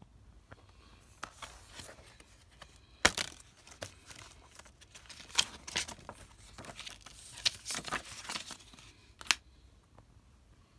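Plastic Blu-ray case being handled and opened: crinkling and rustling with a run of sharp clicks and snaps, the loudest about three seconds in.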